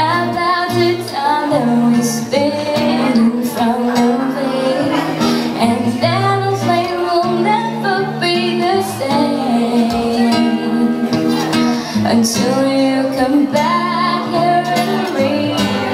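A woman singing a slow pop song live, accompanied by an acoustic guitar.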